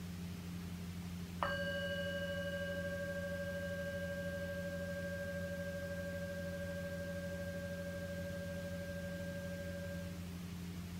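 A meditation chime struck once, about a second and a half in, ringing with a clear steady note and fainter higher overtones that die away sooner, the main note fading slowly over about eight seconds. It marks the start of a mindfulness practice.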